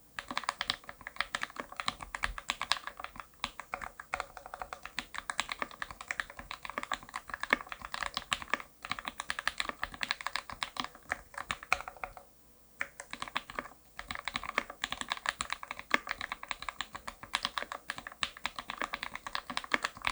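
Fast typing on a DGL 65pr custom mechanical keyboard with lubed Gateron Linjär linear switches in an aluminium plate and GMK Nautilus keycaps: a dense run of keystrokes, with a brief pause about twelve seconds in.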